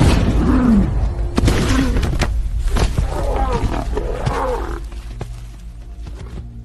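Predatory animals growling and roaring in a run of short calls that bend down in pitch, over a steady low music bed; the calls die away after about five seconds.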